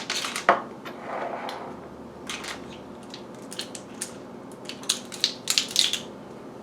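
Kitchen utensils clicking and clinking against dishes: scattered short sharp taps, coming quicker and louder near the end, with a brief soft rustle about a second in.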